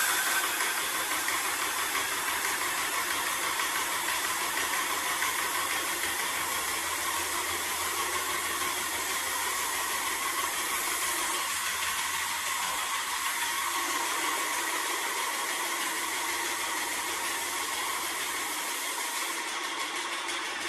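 Airless paint sprayer spraying wall paint: a steady, loud hiss from the spray gun, with a low steady machine hum underneath.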